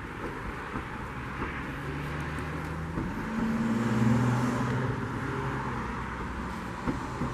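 A car's engine with road noise, swelling to its loudest about halfway and then fading, like a car passing by.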